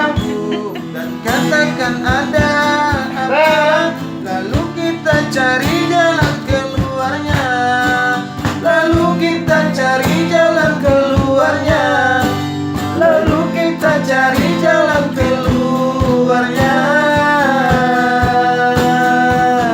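Strummed acoustic guitar with a voice carrying a gliding melody over it, no clear words.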